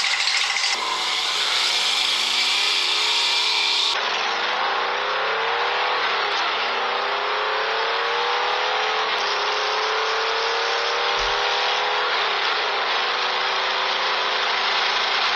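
Radio-controlled scale Scout crawler driving through mud, its motor note rising and falling in long sweeps as the throttle is worked.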